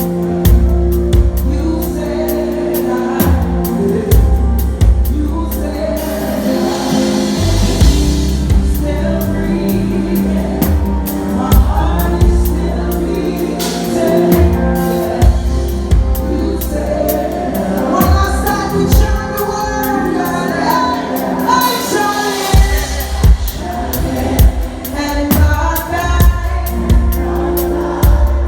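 Live gospel music: singing over a band with bass and drums.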